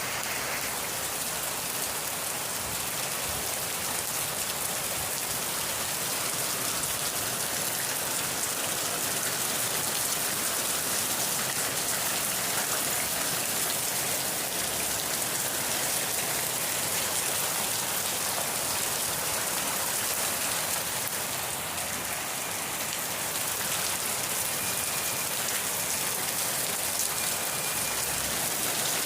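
Steady rain falling on a surface, a dense, even patter.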